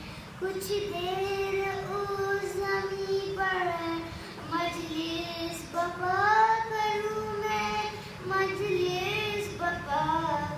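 A boy chanting a munajat (devotional supplication) solo and unaccompanied, in long held notes that glide up and down between short breaths.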